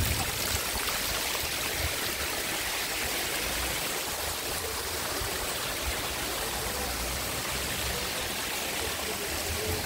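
Water of a cascading waterfall splashing and trickling over tiers of mossy rock ledges: a steady rush of falling water.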